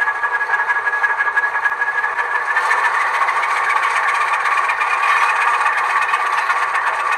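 Recorded Alco S1 diesel switcher engine idling, played by an ESU LokSound sound decoder through the model locomotive's tiny speaker, thin with no deep bass. About two and a half seconds in, the sound shifts as another function sound is switched on over it.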